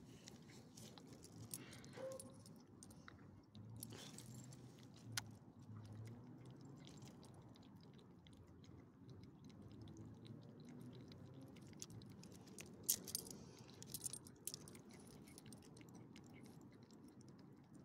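Small dog chewing and crunching food eaten from a hand, in faint irregular clicks with a few sharper snaps; the dog has a growth on its gums.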